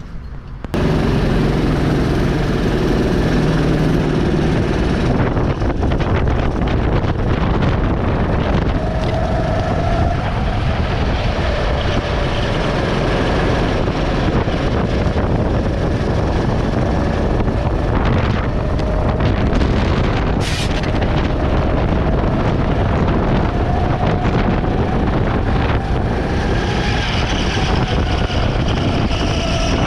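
Go-kart engine running at speed under heavy wind rushing over the microphone, which starts abruptly just under a second in; a faint engine whine wavers and slowly rises in pitch in the second half.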